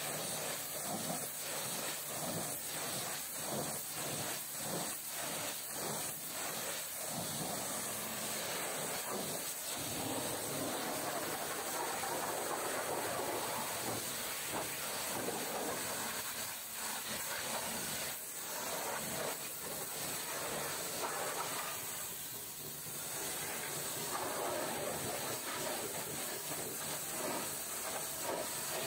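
High-pressure washer jet spraying water against a truck's muddy bodywork: a steady, dense hiss that flickers and wavers through the first third as the jet moves over the surface, easing off briefly about two thirds in.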